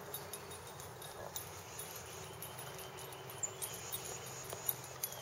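Steady outdoor insect chirring, with a few faint clicks scattered through it.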